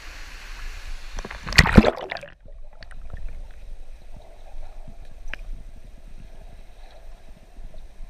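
Water sloshing and splashing close to the microphone, loudest about a second and a half in as the camera plunges under the surface of a waterfall pool. After that the sound turns muffled, as heard underwater, with faint scattered clicks and knocks.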